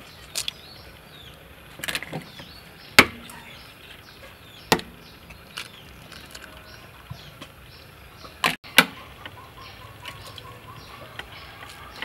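Chicken eggs being cracked one at a time on the rim of a glass mixing bowl: sharp taps every second or two, the loudest about three seconds in, and a quick pair of taps later on.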